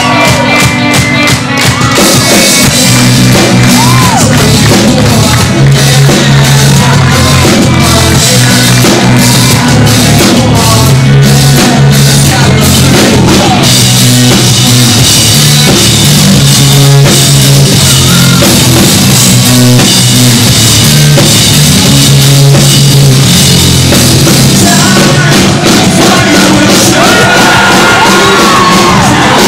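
Rock band playing live at full volume: distorted electric guitar, bass and drum kit, with a male voice singing at times.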